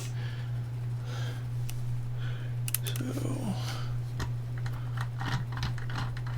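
Light plastic clicks, taps and rattles as the microscope's LED lights and their cables are handled and fitted into place, over a steady low hum.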